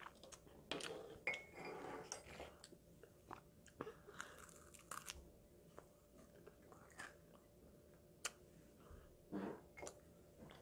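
A child chewing food close to a clip-on microphone, faint, with scattered small mouth clicks.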